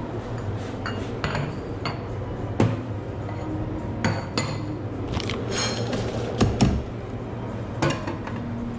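Cafe counter work: ceramic cups, saucers, glass and metal utensils being handled, with scattered clinks and knocks, a short ringing clink about five and a half seconds in and two heavier thumps just after. A steady low hum runs underneath.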